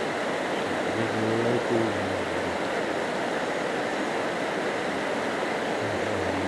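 Shallow rocky river rushing over stones in small rapids: a steady, even rush of water.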